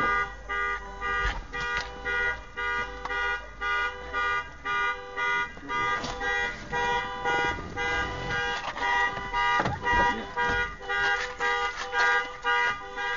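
A vehicle's electronic warning chime beeping steadily, about two beeps a second, with a few faint knocks under it.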